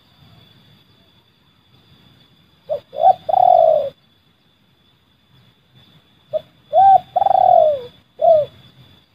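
Spotted dove (terkukur) cooing in the 'seladang gantung' call style, a recording used to lure wild doves. Two phrases come about three and a half seconds apart, each a short note or two and then a longer, drawn-out coo that dips at the end.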